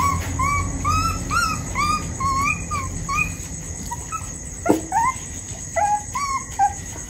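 A puppy whimpering, a quick run of short high cries, each rising then falling, about two or three a second; it has just been bitten by another pup. A single sharp knock about two-thirds of the way through.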